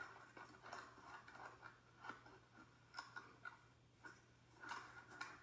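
Near silence: a faint steady hum of room tone with scattered soft taps of thumbs on a phone's touchscreen.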